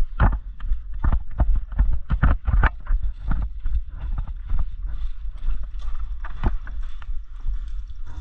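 Irregular knocks and thumps, a few a second, over a steady low rumble.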